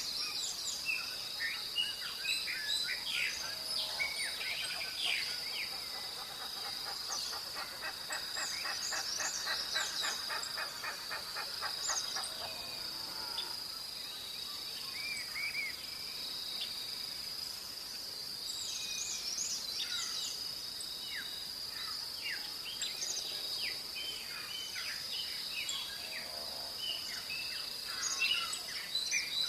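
Dawn chorus of several songbirds chirping and whistling over a steady high-pitched insect drone. In the middle, for about five seconds, a fast, even trill sounds lower down.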